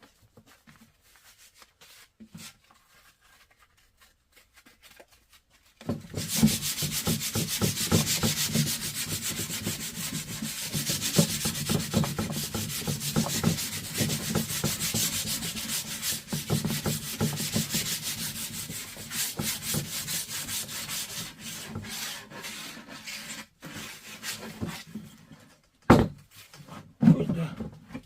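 Hand sanding with 220-grit sandpaper: rapid back-and-forth rubbing strokes that start about six seconds in and go on steadily, then stop, followed by two or three sharp knocks near the end.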